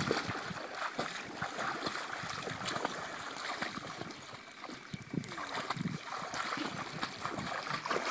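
Water splashing and sloshing as children kick and paddle in a small inflatable pool, with brief children's voices now and then.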